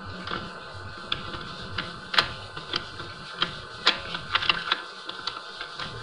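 Screwdriver tip clicking and scraping against the metal parts inside a door lock's bolt hole: a string of irregular sharp clicks, the loudest about two seconds in and again near four seconds.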